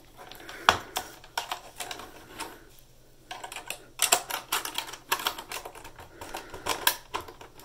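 Irregular clicking and rattling of plastic parts as the PS4 Slim's hard-drive bay cover is fitted, taking several tries to slide into place. There is a short pause in the clicks about three seconds in.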